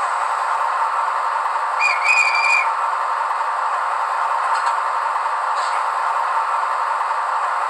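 Sound decoder in a model ČSD M 262 railcar playing a steady rushing hiss through its small loudspeaker, the air-compressor sound on function F15. About two seconds in a short whistle-like tone sounds for under a second.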